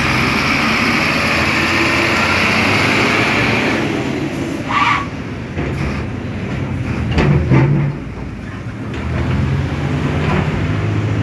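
Sinotruk HOWO dump truck's diesel engine running, loudest with a strong hiss over the first few seconds, then settling lower. A short high squeal comes about five seconds in, and a few clicks follow a couple of seconds later.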